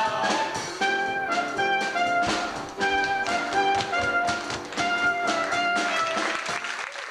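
Small live pit orchestra with brass playing a jazz-style show tune, with sharp percussive hits through the music.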